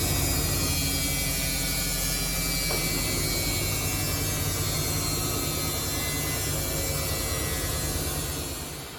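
Samsung washing machine running, a steady motor hum and drum noise slowly falling in pitch, then dropping off in level near the end.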